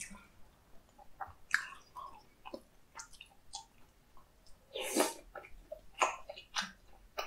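Close-miked wet eating sounds: chewing soft food such as sundae and tteokbokki, with scattered light clicks and one longer, louder wet sound about five seconds in.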